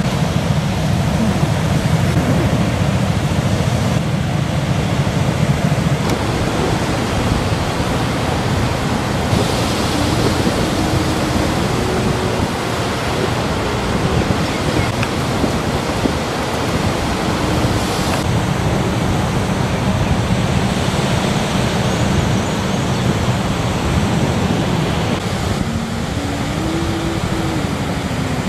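Waves breaking on a sandy beach: a steady rush of surf mixed with wind.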